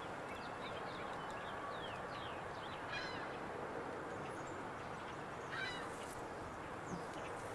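Birds chirping and calling over steady background noise: a scatter of short chirps in the first couple of seconds, then two longer calls about three and five and a half seconds in.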